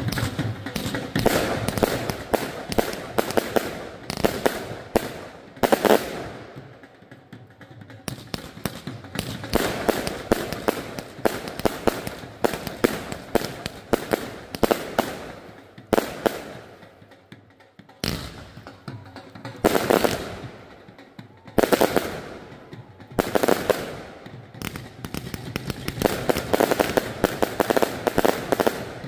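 Aerial fireworks going off in volleys: rapid strings of pops and crackles with several louder bangs among them, and short lulls between the volleys.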